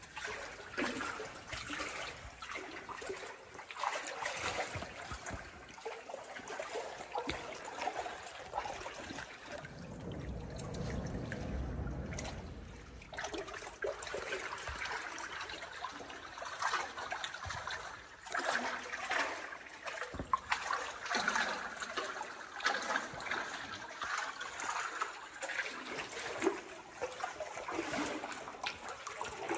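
River water trickling and lapping around inner tubes floating through a cave, with many small splashes and a low rumble for a few seconds near the middle.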